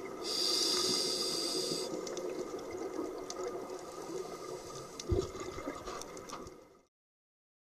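Scuba divers' regulator breathing and exhaled bubbles heard underwater through a camera housing, with a strong high hiss lasting about a second and a half near the start and a low knock about five seconds in. The sound cuts off abruptly about a second before the end.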